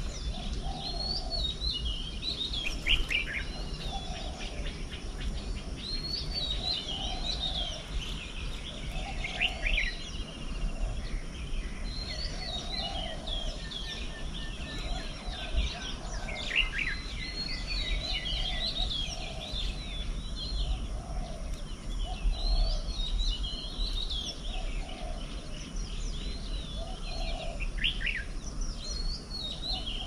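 Wild birds singing and calling: a stream of high chirps, whistles and warbles, with a lower call repeated roughly once a second, over a steady low background rumble.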